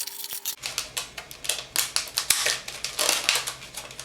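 Scissors snipping through a hard plastic blister package: an irregular run of sharp clicks and crackling plastic, several a second.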